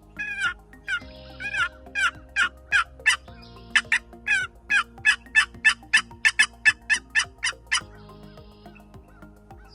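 Wild turkey yelping: a long run of about twenty short, sharp yelps that come faster and faster, stopping about eight seconds in.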